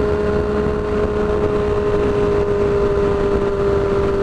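Yamaha R6 sport bike's inline-four engine with a shorty exhaust, running at steady revs while cruising, under a broad rush of wind noise.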